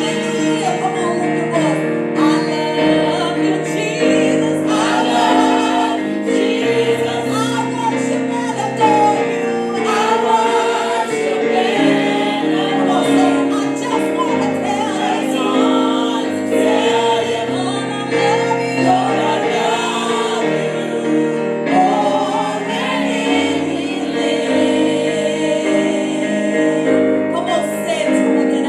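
Church choir singing a gospel song with instrumental accompaniment, sustained chords under wavering sung melody lines.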